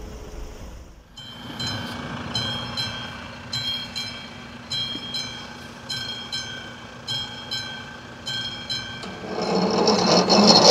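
AŽD 71 level-crossing warning bell ringing in uneven strikes, about two a second, over a steady hum. Near the end the barrier drive's motor starts with a loud whir as the boom begins to move.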